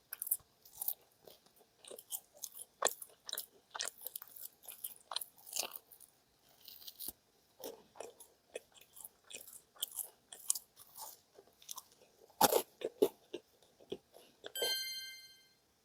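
Close-miked biting and chewing of bagels: irregular crunchy bites and wet chewing, with the loudest crunch about three quarters of the way through. Near the end a short, bright ringing tone lasts about a second.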